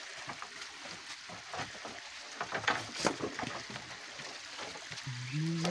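Running water trickling and splashing, a steady hiss, with a few sharp clicks around the middle and a short low voice near the end.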